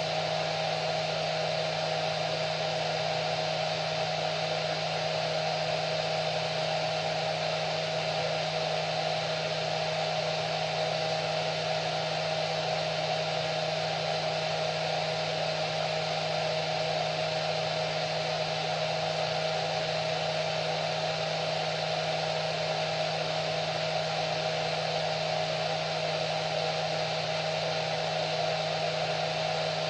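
Hair dryer running steadily: a continuous airy rush with a low motor hum and a steady whine, unchanging throughout.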